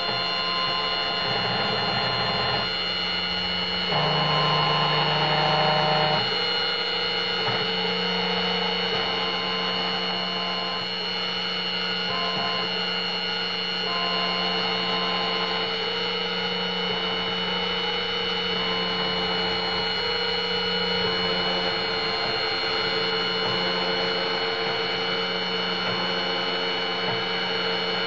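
Small CNC engraving machine milling traces into a copper-clad circuit board: a steady high whine from the spindle with a low hum under it. Humming tones shift in pitch now and then, loudest for about two seconds around four seconds in.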